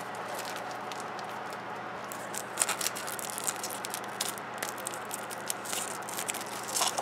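Faint crinkling and light clicks of cellophane shrink wrap and a hard plastic toy tube being handled, with a few sharper ticks about halfway through.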